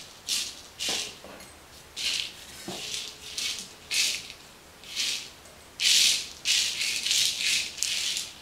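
Dried purple hull peas rattling and sliding over a perforated pizza pan as a hand sweeps and sifts through them. The sound comes as repeated short, crisp rattling swishes, about one or two a second.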